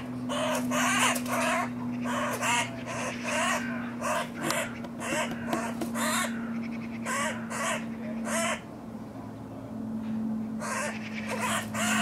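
Magpie giving harsh, rapid chattering calls over and over, the alarm chatter of a magpie under attack by a sparrowhawk. The calls break off for about two seconds near the end, then resume. A steady low hum runs beneath them.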